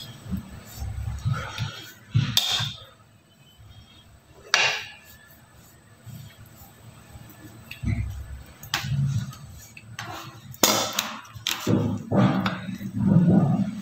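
Metal offset spatula scooping chocolate ganache from a glass bowl and spreading it onto a cake, with a few sharp clinks of the blade against the bowl amid softer scraping and handling noise.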